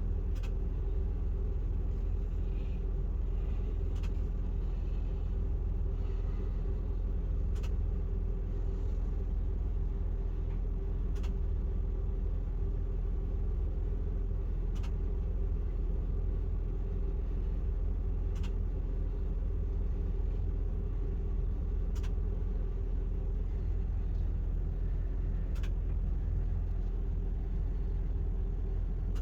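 RV's propane generator running steadily with a low rumble and a steady hum, and a faint tick about every three and a half seconds. It is in its start-up delay, running before its power switches over to the RV.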